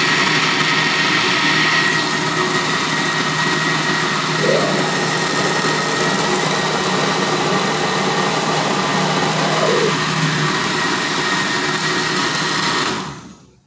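Oster Duralast Classic countertop blender running steadily at full speed with a constant whine, blending a thick chocolate cake batter. It is switched off near the end and spins down.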